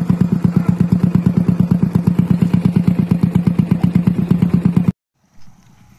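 Motorcycle engine running steadily and loudly close by, with a fast, even pulse. About five seconds in it cuts off suddenly, leaving only faint background noise.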